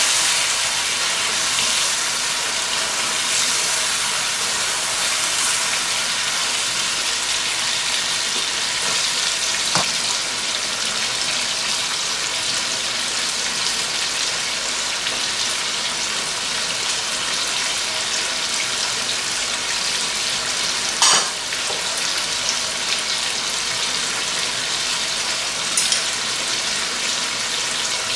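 Chicken pieces and tomatoes sizzling in hot oil in a nonstick karahi, a steady frying hiss. A few sharp clicks of a utensil against the pan break through it, the loudest about 21 seconds in.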